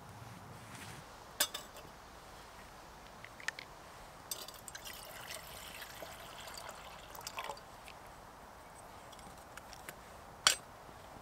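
Water poured from a plastic bottle into a steel cup sitting on a lit spirit burner, filling it to boil for a brew; the pouring starts about four seconds in and lasts about three seconds. Small clinks come before and after it, and a single sharp clink near the end is the loudest sound.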